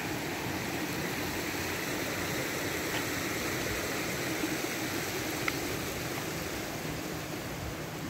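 A small woodland creek running beside the trail: a steady rush of water, with a couple of faint ticks around the middle.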